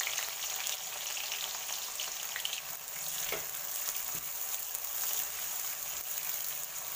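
Sliced onions sizzling steadily in hot oil and ghee in a metal pot, with fine crackling as they fry, stirred with a spoon.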